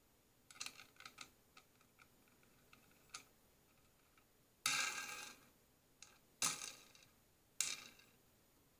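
Small metallic clicks and rattles of a steel nut and washer being spun by hand down a threaded rod: light scattered ticks at first, then three louder rattles in the second half, the first lasting nearly a second.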